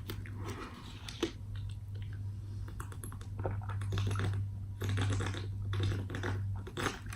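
Close-miked chewing: a run of small wet clicks and smacks from the mouth, irregular and quick, over a steady low hum.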